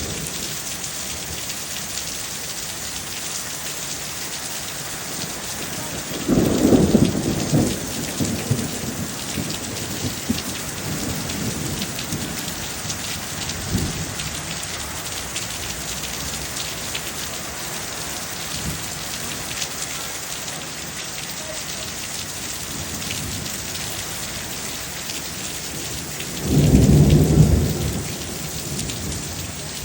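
Heavy rain falling in a steady hiss during a thunderstorm, with two loud rolls of thunder: one about six seconds in and another near the end.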